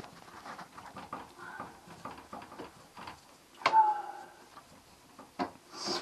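Faint clicks and light knocks of hands working among the wires and fittings in a boat's engine compartment, with a short louder sound a little under four seconds in whose pitch falls, and two sharper knocks near the end.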